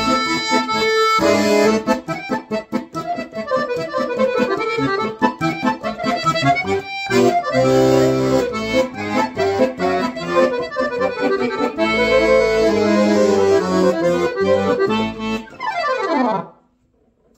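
A 1986 Guerrini President Superior 2 piano accordion playing a Romanian suite: a held chord, then fast runs of notes over bass chords. It ends with a quick downward sweep and stops shortly before the end.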